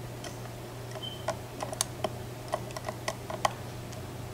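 Small, sharp metallic clicks, about a dozen at irregular spacing, between about one and three and a half seconds in, from a hook pick lifting the pins of a Mako M2 SFIC lock cylinder under light tension: pins clicking as they are pushed to the shear line. A steady low hum runs underneath.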